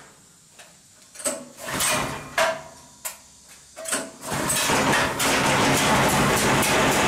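Homemade rice threshing machine starting up: a few short, uneven bursts of noise, then from about four seconds in it runs steadily and loudly with a low hum.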